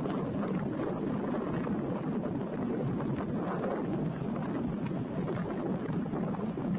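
Boeing 737's jet engines running with a steady, noisy rumble, mixed with gusty wind on the microphone, as the airliner rocks through a turbulent landing attempt.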